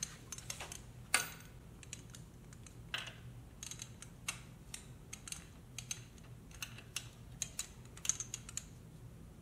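Wrench ratcheting on the motorcycle's rear shock mounting bolts as they are tightened toward 32 foot-pounds: a string of light, irregular clicks, a few a second and sometimes in quick clusters.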